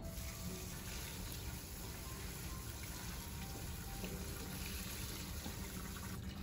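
Kitchen tap running water onto chopped spinach leaves in a perforated aluminium colander while they are rinsed clean. It starts abruptly and stops shortly before the end.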